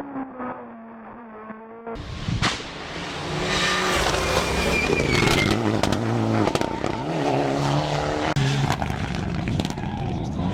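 Rally car engine revving hard at racing speed: faint and falling in pitch for the first two seconds, then much louder, rising and dropping as it changes gear.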